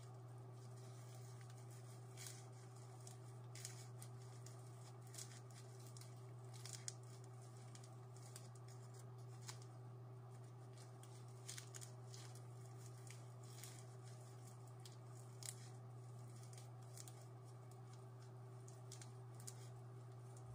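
Faint, scattered small clicks and scratches of fingers working a thin wire, over a steady low hum.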